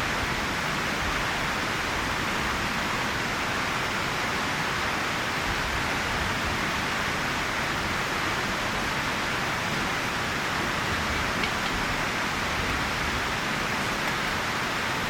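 Steady, even rushing hiss with a couple of faint ticks.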